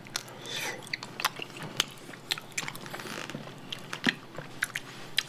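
Close chewing of a mouthful of raw honeycomb, a run of irregular mouth clicks as the wax comb is worked between the teeth.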